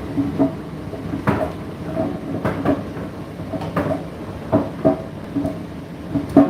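Indesit IDC8T3 condenser tumble dryer running mid-cycle: a steady motor and fan hum with irregular knocks, roughly one a second, as the load tumbles in the drum.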